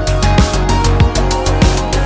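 Loud electronic background music with a fast, steady kick-drum beat and sustained synth notes.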